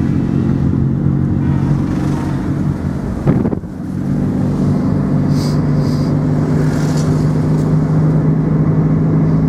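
Engine and road noise heard from inside a moving vehicle's cabin: a steady engine hum that breaks off briefly about three seconds in, then settles back to steady running.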